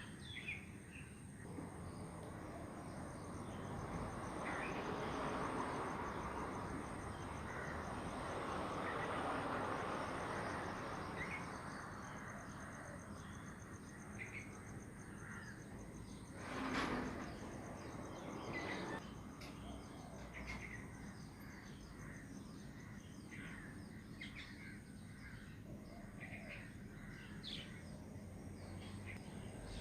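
Wild birds calling in short chirps scattered throughout over a steady rushing background of trickling water, which swells for several seconds early on. About seventeen seconds in there is one louder, fuller sound.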